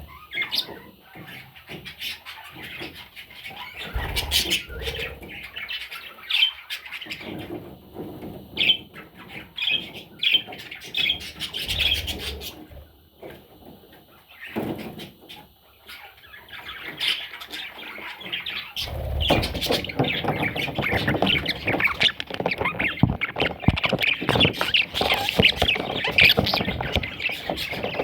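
Pet budgerigars chattering and squawking, with short scratchy chirps coming in scattered bouts at first and then in a dense, continuous chatter for roughly the second half. A few low thuds are mixed in.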